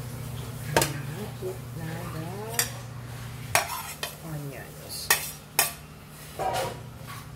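Metal spoon scraping sliced onions off a plastic plate into a metal pan of simmering soup, knocking sharply against the plate and the pan's rim several times, over a steady low hum.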